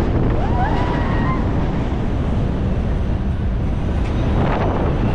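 Wind rushing and buffeting over the microphone as the Airborne ride's arm swings the riders high and over the top. There are a couple of short rising-and-falling cries from riders in the first second or so.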